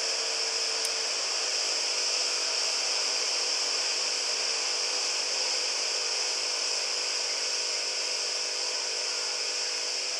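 QS-2008 SMD vacuum pick-up station running: a steady airy hiss from its vacuum pump and airflow, with a faint hum underneath.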